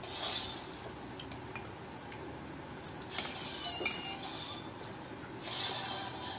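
Metal fork clinking and scraping against a stainless steel plate while noodles are eaten, with a few light clicks and two sharper clinks a little past halfway.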